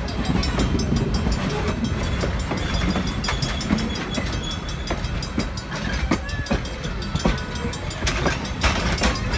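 Steel passenger coaches rolling past close by: a steady low rumble of wheels on rail, with irregular sharp clicks as the wheels cross rail joints.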